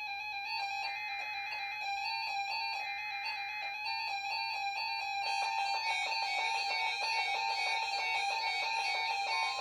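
Several NOAA weather radios sounding their electronic alert beeps at once for a Required Weekly Test, with overlapping beeping in different pitches and rhythms. The beeping grows denser about five seconds in as more radios join, and a steady tone comes in near the end.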